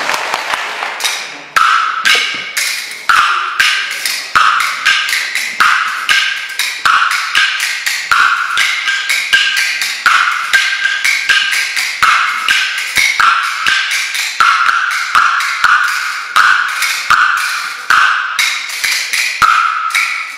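Kuaiban bamboo clappers, a pair of large clappers and a small multi-piece set, played by two performers in a fast, shifting rhythm of crisp, ringing clacks, several a second. Applause dies away in the first second or so, before the clapping takes over.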